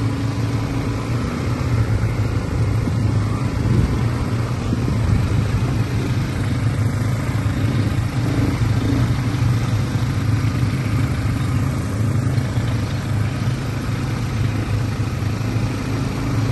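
ATV (quad bike) engines running at a steady riding pace: a constant low engine hum under a rough noise, with no change in speed.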